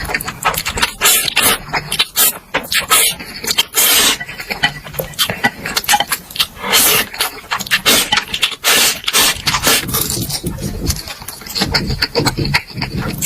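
Close-miked eating of Indomie instant noodles and chicken: chewing, with quick irregular wet mouth clicks.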